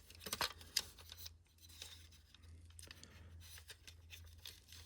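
Faint clicks and light handling noises from an opened Ei smoke alarm's plastic casing being turned in the hand. Several sharp clicks come in the first second and a half, then only sparse faint ticks.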